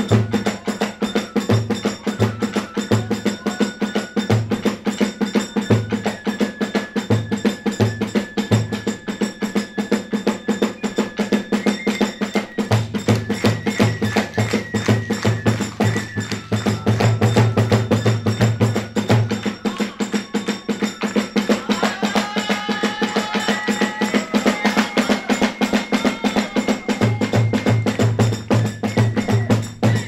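Hiroshima kagura music played live: a large drum beats, with hand cymbals clattering in a steady quick rhythm and a bamboo flute holding long notes. The drum strikes are spaced out at first, then run in fast rolls about halfway through and again near the end.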